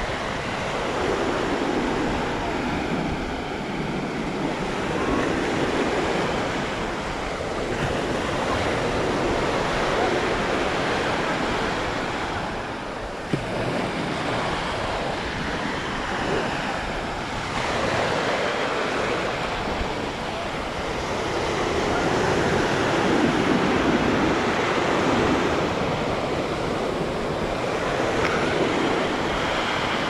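Sea surf breaking and washing up on the beach, swelling and ebbing every few seconds.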